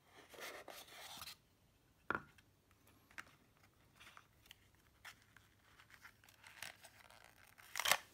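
Cardboard packaging being handled and lifted out of a small box: a scraping rustle of card in the first second, a sharp tap about two seconds in, faint scattered clicks, and another short rustle near the end.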